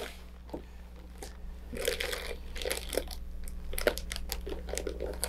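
Clear plastic bag crinkling and rustling in irregular bursts as hands work it open.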